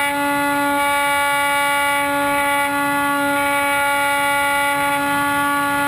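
Electric motor and propeller of a Hawk Sky RC plane in flight, a loud steady whine held at one pitch, picked up by a camera riding on the airframe.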